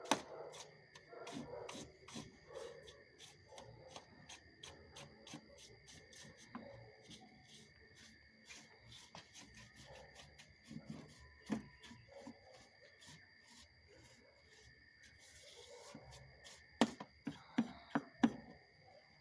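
A paintbrush scrubbing dust and cobwebs off the plastic filter cage of a Ridgid wet/dry shop vacuum, in quick repeated strokes, with a few sharper knocks near the end.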